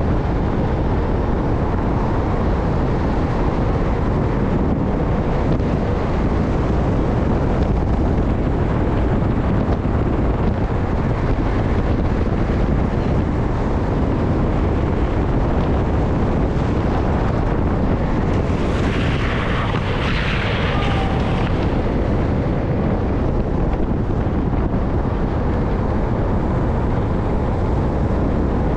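Steady, loud wind rush over the microphone mixed with the rumble of skateboard wheels rolling fast on asphalt, as a downhill skateboard racer bombs a hill at speed. A brief brighter hiss lasts about three seconds, roughly two-thirds of the way through.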